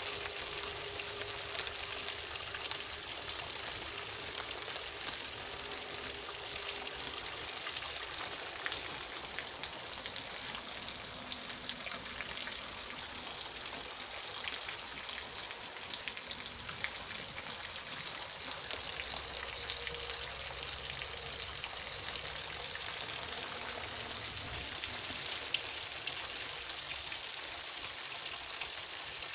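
Steady rain falling, an even hiss with scattered drops tapping.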